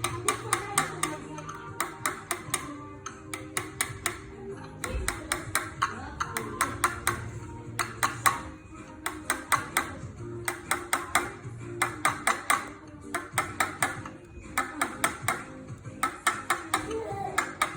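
Back of a knife tapping rapidly on a thick ostrich eggshell, in quick bursts of sharp knocks with short pauses between them; the shell is not cracking.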